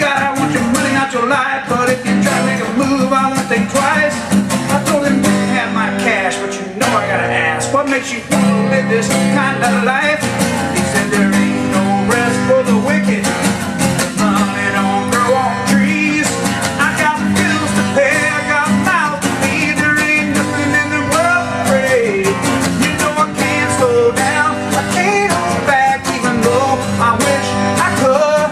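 A song with guitar and a singing voice.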